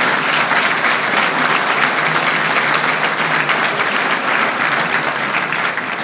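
Audience applauding steadily, the dense patter of many hands clapping.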